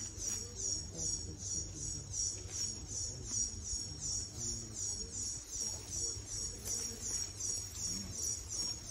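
An insect chirping steadily in short high-pitched pulses, about three a second, over a low steady rumble.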